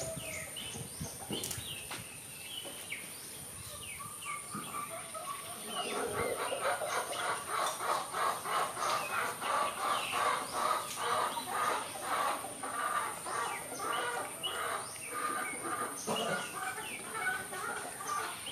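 A bird calling in a long run of quick, repeated clucks, starting about six seconds in and easing off near the end, over a steady high-pitched whine.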